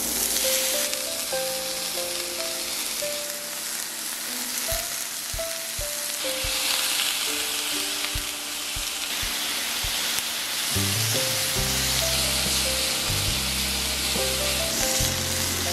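Thin-shaved pork belly slices sizzling as they fry in a hot pan. Light background music plays underneath, and its bass comes in about two-thirds of the way through.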